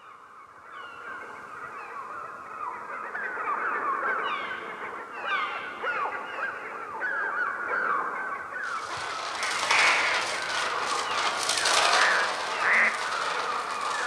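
Massed bird squawking and cawing: electronic bird cries made on the Mixtur-Trautonium, many short downward-sliding calls that grow steadily louder. About two-thirds of the way in a loud rushing hiss joins them, with harsher bursts of cawing.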